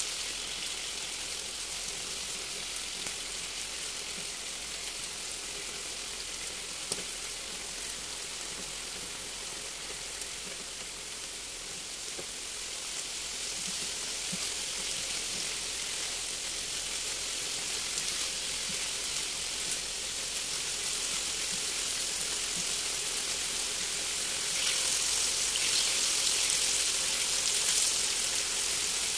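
Food frying in a hot pan: a steady sizzle with scattered crackles and one sharper tick about seven seconds in, growing louder near the end.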